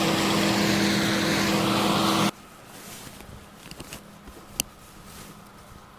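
Heavy farm machinery engine running steadily with a constant low hum, which cuts off suddenly a little over two seconds in. Then it is quiet except for a few faint clicks and one sharp tick.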